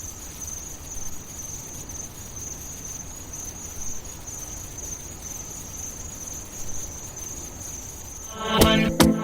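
Steady high-pitched chirring of crickets over a low hiss of night ambience. About eight and a half seconds in, a dance-pop track starts over it with sharp rhythmic synth chords.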